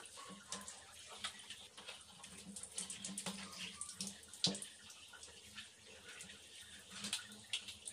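Quiet splashing and dripping of bathwater around a wet, soapy Shih Tzu being bathed, with scattered small clicks and knocks, the loudest about four and a half seconds in.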